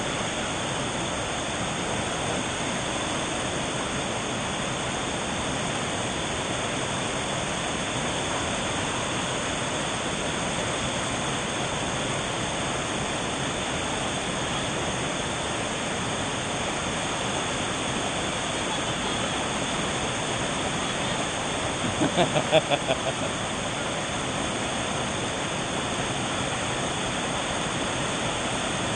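Steady rush of water from a waterfall cascade. About two-thirds of the way through, a brief pulsing burst of a person's voice rises above it.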